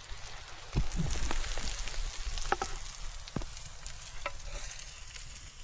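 Butter sizzling in a hot pan as soaked French toast sticks fry, with scattered sharp pops and crackles over a steady hiss.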